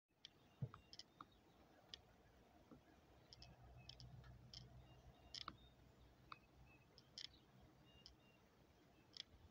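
Faint, irregular clicks and light rustling from a long-haired rabbit moving about in the straw bedding of a wooden hutch.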